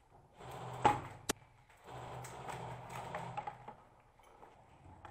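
Airsoft sniper rifle firing: a loud sharp clack about a second in, then a short sharp click, with low muffled handling noise around them.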